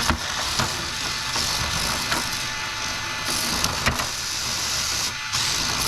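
Small electric motors of two Hexbug remote-control mini battle bots whirring as they drive and fight, with sharp plastic clicks and knocks as they hit each other.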